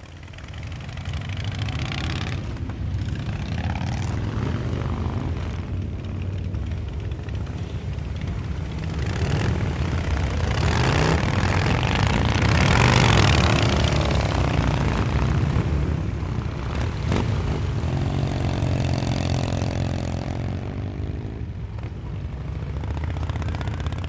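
A large pack of Harley-Davidson cruiser motorcycles rumbling along at low speed, their V-twin engines idling and revving lightly as they move off together. The sound swells to its loudest about halfway through, and one engine's rev stands out about three-quarters of the way through.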